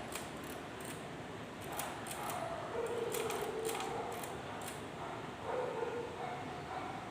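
K Clover 815 manual typewriter's mechanism clicking irregularly, about a dozen sharp clicks spread unevenly, as keys and typebars are worked.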